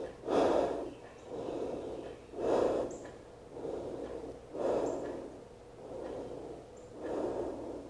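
A woman breathing slowly and deeply while holding a floor stretch: four louder breaths about two seconds apart, with softer ones in between.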